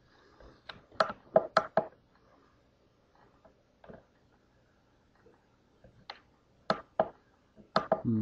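Clusters of sharp clicks: four in quick succession about a second in, three more around six to seven seconds, and two near the end.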